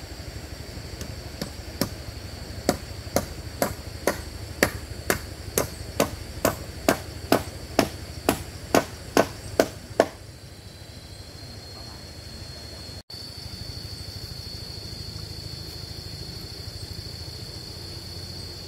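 Hammering during timber bridge repair: about twenty sharp blows at a steady two a second, the first few lighter, which stop about ten seconds in.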